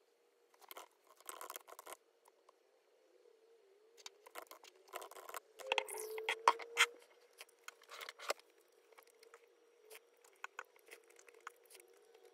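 Quiet tabletop handling noises, with light taps, rustles and clinks. Water is poured from a pitcher into a glass cup about halfway through, the loudest part.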